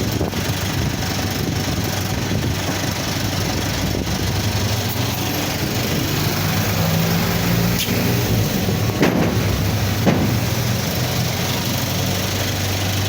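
A steady low mechanical hum, like an engine or motor running at idle. A few short sharp clicks come in the second half.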